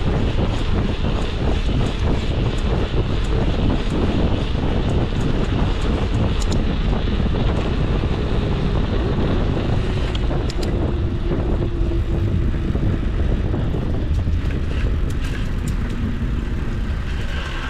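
Wind buffeting the microphone over a steady low rumble of rolling, as on a moving bicycle during a test ride of the repaired shifter.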